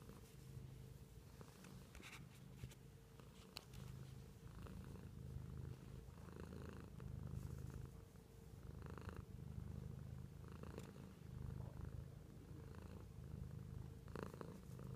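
Domestic cat purring steadily at close range, the purr swelling and easing with each breath, about once a second.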